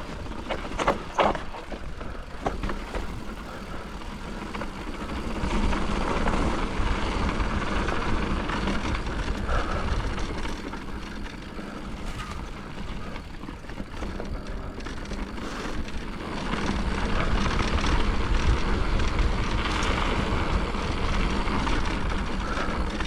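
Mountain bike rolling over a dirt trail: steady tyre rumble and rattle with wind noise, growing louder twice, about five seconds in and again at about sixteen seconds.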